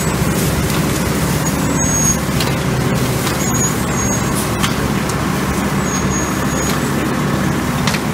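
Truck-mounted leaf vacuum running, its wide hose nozzle sucking up a curbside pile of dry leaves: a steady loud rush of air over the truck's engine drone, with a few sharp clicks.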